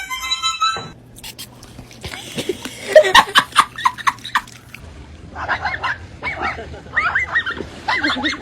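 A pet animal calling in short, repeated bursts that bend in pitch, with some sharp short sounds mixed in. Background music cuts off about a second in.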